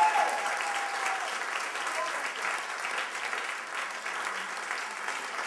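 Audience applauding, loudest at the start and then settling to steady clapping.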